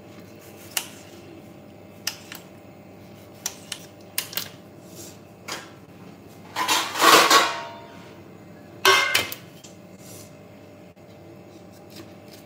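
A kitchen knife clicks sharply against the countertop several times as a tomato is cut. About seven seconds in, a steel plate scrapes and clatters onto the counter, the loudest sound, and a shorter ringing metal clink follows about two seconds later.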